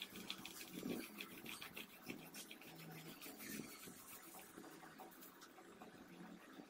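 Oil pastel being scribbled rapidly back and forth on paper: a faint, quick run of scratchy strokes, several a second.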